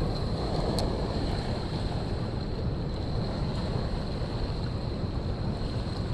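Wind rumbling steadily on the camera's microphone, with a faint steady high whine underneath and a single sharp click about a second in.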